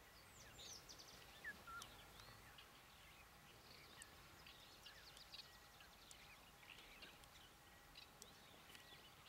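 Faint bird chirps and calls: many short, quick notes, some sweeping up or down, scattered over a quiet outdoor background.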